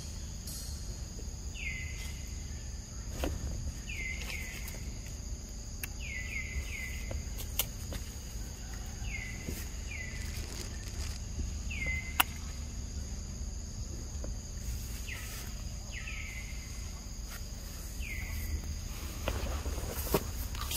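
Forest ambience: a steady high insect drone, with short falling chirps every second or two, often two or three close together, and a few sharp clicks.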